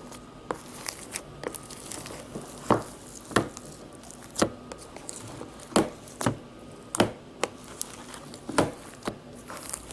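Purple glittery foam slime being squished and poked in its container, giving irregular sharp crackles and pops, the loudest roughly a second apart.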